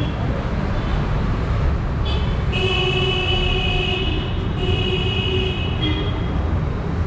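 Steady street traffic rumble, with a vehicle horn sounding twice near the middle, the first blast about a second and a half long, the second about a second.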